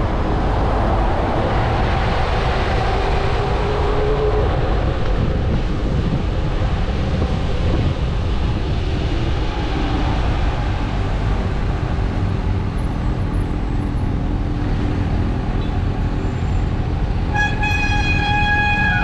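Steady wind rush and road noise on a bicycle-mounted action camera's microphone, with passing bus and traffic. Near the end a loud, steady-pitched squeal starts from the bus braking just ahead, a bus brake squeal as it slows for the stop.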